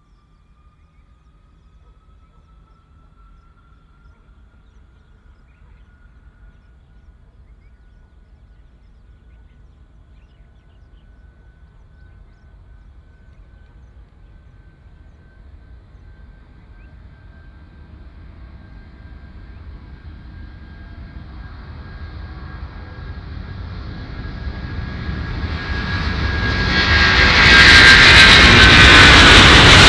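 Airbus A330 jet engines at takeoff power during the takeoff roll, approaching: a faint high whine that slowly rises in pitch over a low rumble, growing steadily louder. Near the end it becomes a loud roar as the airliner passes close by.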